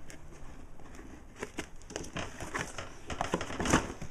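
Cardboard product box being opened and handled by hand: scattered rustles, scrapes and small knocks of cardboard and the parts inside, the loudest knock near the end.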